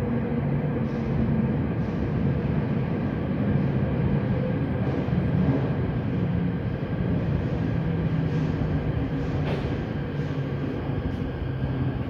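Hokutetsu 03 series electric train pulling into an underground station platform: a steady rumble with a hum of several held tones, and a few sharp clicks in the last few seconds.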